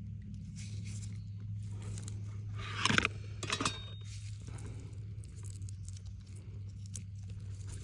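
Light scraping and rustling of small tools and wire being handled during a coaxial cable solder repair, with a sharper scrape about three seconds in and another shortly after, over a steady low hum.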